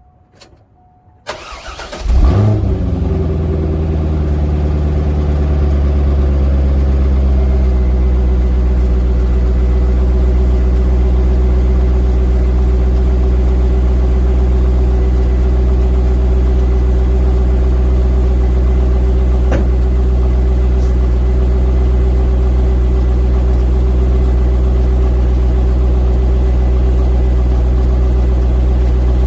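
C5 Corvette Z06's LS6 V8 cranked by the starter, catching about two seconds in with a brief flare, then settling into a steady, loud idle through its exhaust.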